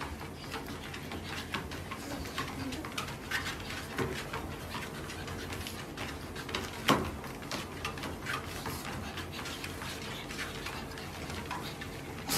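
A treadmill running, with a steady low hum from its motor and belt and irregular light knocks of steps on the moving belt from a pug and a person walking on it. One sharper knock comes about seven seconds in.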